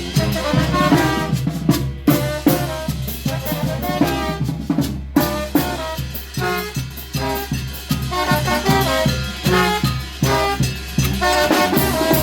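Banda de viento playing live: brass instruments carry the tune over a steady beat of drums.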